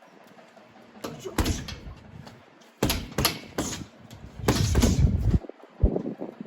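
Boxing gloves hitting a punch bag: a single shot, then a quick combination of about three punches, then a longer flurry of hits.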